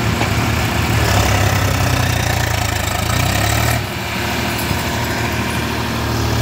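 Swaraj tractor diesel engine running steadily with a deep rumble, easing off slightly about four seconds in.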